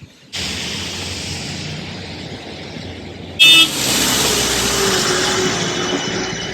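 Loud traffic noise on a road, with a vehicle horn giving one short honk about three and a half seconds in.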